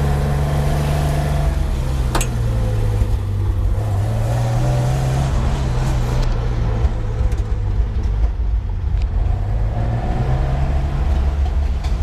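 Racing car engines running at fairly low revs, the pitch dipping and then wavering up and down, with a sharp click about two seconds in.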